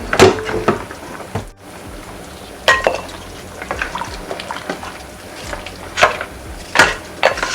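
A utensil clinks against a pot a handful of times as boiled goat meat is lifted out of its cooking liquid, one clink ringing briefly, over a steady low hiss.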